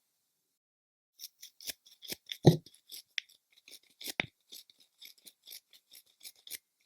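A rapid, uneven series of short sharp clicks, about four a second, starting about a second in, with a louder click carrying a low thump about two and a half seconds in.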